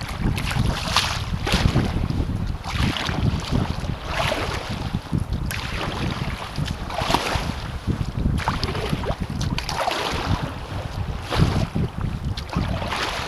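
Kayak paddle blades dipping and splashing in steady alternate strokes, about one every second or so, with choppy water washing against the kayak. Wind buffets the microphone in a constant low rumble.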